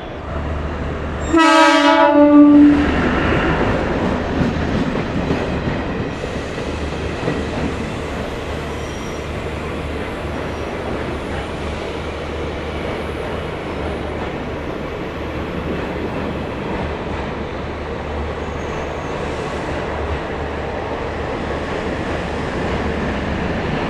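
A train horn blasts once, about a second and a half in, lasting about a second and a half, then a train runs past with a steady rumble and wheel noise on the rails.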